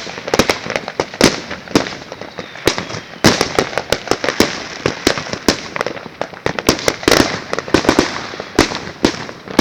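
Fireworks and firecrackers going off all around: a dense, irregular string of sharp bangs and pops, several a second, some loud and close, others farther off.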